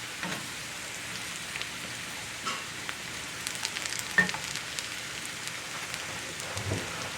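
Sliced potatoes and onions frying uncovered in a cast-iron skillet: a steady sizzle with scattered crackles and pops, and one sharper knock about four seconds in.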